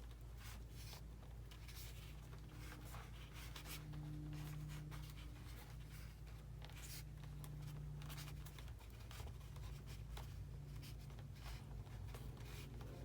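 Faint scratching, rubbing and small clicks from hands working wires and parts into a foam RC airplane, over a steady low hum.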